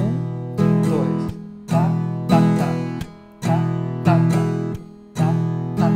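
Viola caipira strummed in the cururu rhythm: down, up, down groups of chords repeating a little under every two seconds, each group closing with a brief muted knock.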